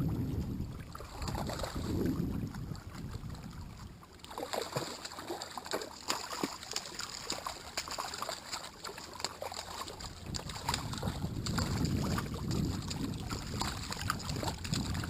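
Wind buffeting the microphone in low gusts, easing for several seconds in the middle while a run of small clicks and crackles comes through, then gusting again near the end.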